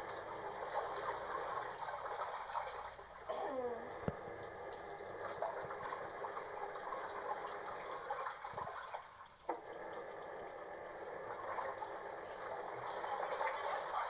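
Water running and gushing steadily, as when laundry water is filled or drained. A brief falling sound about three seconds in and a couple of small knocks.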